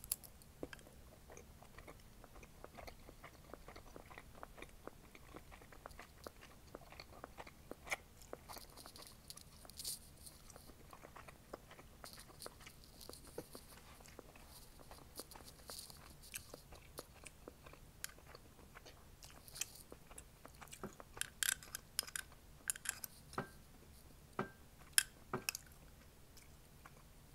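Mouth chewing chewy cheesy tteokbokki (Korean rice cakes), soft wet smacks and clicks throughout. A few louder, sharper clicks come near the end.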